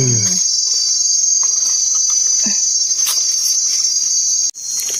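Loud, steady, high-pitched insect chorus, a continuous shrill buzz that breaks off for an instant about four and a half seconds in.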